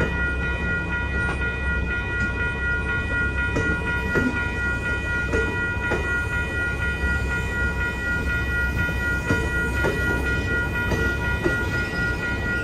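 Amtrak Pacific Surfliner bi-level passenger cars rolling steadily through a grade crossing, a low rumble with scattered clicks of wheels over the rail joints. The crossing bells ring without a break over it.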